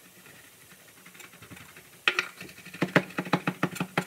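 Kitchen knife chopping on a wooden cutting board: a quick, irregular run of sharp knocks that starts about two seconds in.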